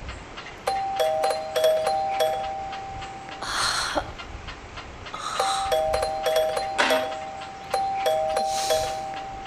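An electronic chime rings a two-note tune twice: a higher note is held while a lower one pulses. The second ring starts about halfway through and is still going at the end. Short bursts of hiss come between the rings.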